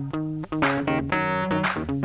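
Instrumental background music with sustained pitched notes over a regular beat.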